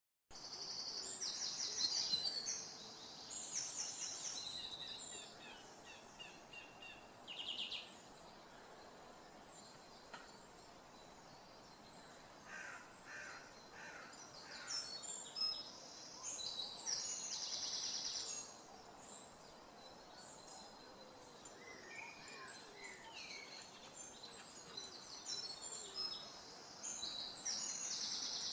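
Songbirds singing: bursts of high, rapid trilled phrases separated by pauses, with a few lower chirps, over a faint steady outdoor background noise.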